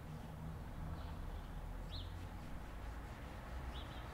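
Faint high bird chirps, short and spaced about a second apart, three of them, over a steady low rumble.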